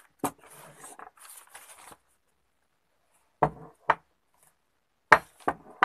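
Paper pattern and cloth rustling as they are handled on a cutting table, after one sharp click; then a gap and several sharp knocks on the table in two quick pairs, the loudest about five seconds in.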